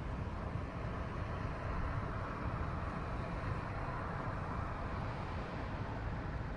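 Steady low rumble of a car's road and engine noise heard from inside the cabin, with a rushing swell in the middle as an oncoming van passes.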